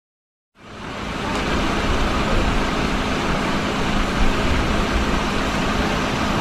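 Steady road traffic noise that fades in about half a second in, with a faint steady hum beneath it.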